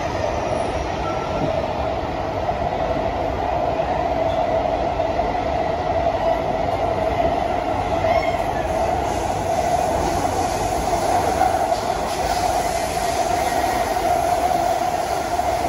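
SMRT Kawasaki–CRRC Sifang C151B metro train running at speed through a tunnel, heard from inside the passenger car: a steady rumble of wheels on rail with a strong mid-pitched hum.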